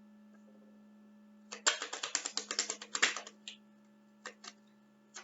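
A rapid run of sharp clicks lasting about a second and a half, then a few single clicks spaced out toward the end.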